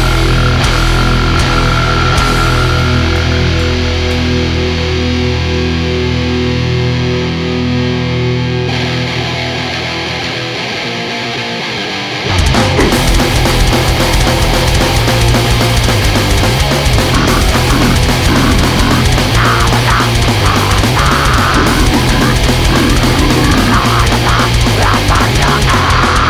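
Extreme metal band recording: distorted guitar riffing that thins out, its low end dropping away. About twelve seconds in, the full band comes in abruptly, loud and dense, with fast drumming under the guitars.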